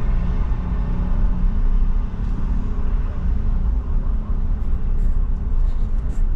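Steady low rumble of a vehicle's engine and road noise, heard from inside the cabin while driving slowly.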